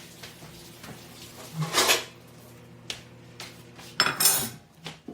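Dishes and kitchen utensils clattering as they are handled: a few knocks and scrapes, the loudest about two seconds in and about four seconds in.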